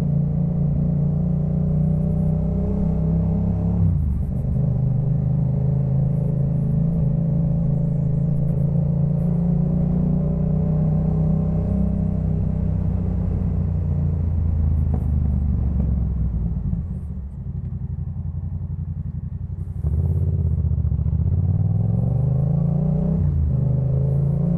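Yamaha MT-07 parallel-twin engine breathing through a Jeskap K4 full aftermarket exhaust while riding. It runs steadily under throttle, drops in pitch at a gearchange about four seconds in, and goes quieter off the throttle past the middle. It then picks up again with a rising pitch and changes gear once more near the end.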